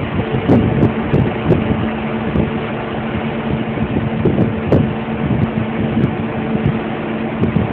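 Heavy diesel machinery engine running steadily with a constant hum, over irregular knocks and rattles.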